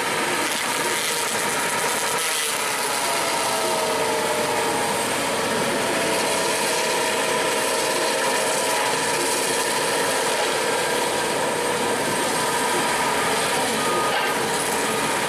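A motorised machine running steadily: a dense, even mechanical noise with a few faint wavering tones and no letup.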